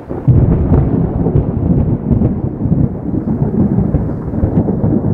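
Thunder sound effect: a loud, continuous rolling rumble that swells just after it begins and keeps rolling without a break.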